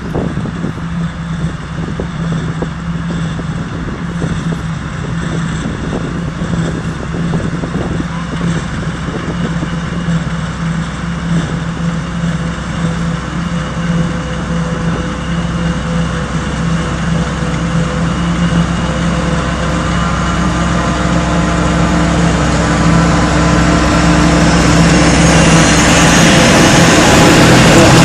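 Tractor engine running steadily while driving across a field. A Claas forage harvester's engine and chopper grow steadily louder as the tractor draws up alongside it, adding higher steady tones over the second half.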